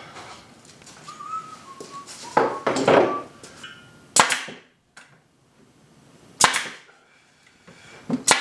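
Woodworking clamps being released and taken off glued wood. A brief squeak comes first, then a couple of louder knocks, then three sharp clacks about two seconds apart.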